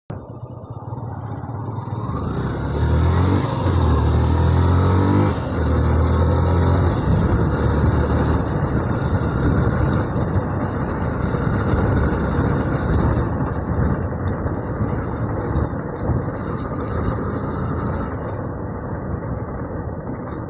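Yamaha FZ V2 motorcycle's single-cylinder engine pulling away, its pitch rising over the first few seconds with a brief dip about five seconds in, then a steady riding noise.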